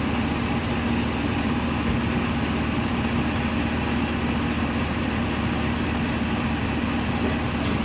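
A vehicle engine idling steadily: an even, low hum with no change.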